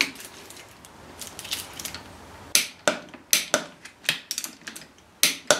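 Torque wrench ratcheting on a motorcycle clutch hub bolt as it is tightened to torque: a run of sharp, irregular metallic clicks, about three a second, starting about halfway through.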